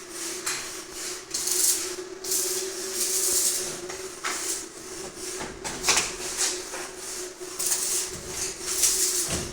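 Uneven bursts of high hissing and rattling noise over a steady low hum.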